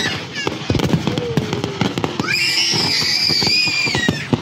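Aerial fireworks display: dense, irregular bangs and crackling from bursting shells. Through the second half a long high-pitched tone runs over the bangs, falling slightly.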